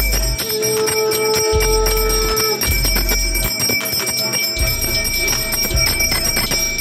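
Hand bell rung rapidly and continuously in puja worship, a dense run of ringing strikes. A long steady held tone sounds with it for about two seconds near the start.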